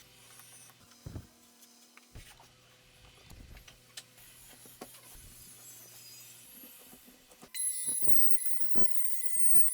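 Quiet handling clicks and knocks over a faint low hum, then about seven and a half seconds in a small electric power tool starts with a high-pitched, slightly wavering whine that keeps running, with a few knocks under it.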